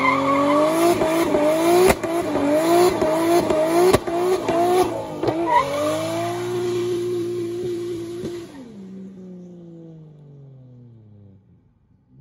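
Big-turbo 2JZ-GTE inline-six in a Lexus GS300 revving hard through a burnout, the revs climbing and dipping over and over with the rear tyres spinning and squealing. About six seconds in the revs are held steady, then they fall away as the sound fades out.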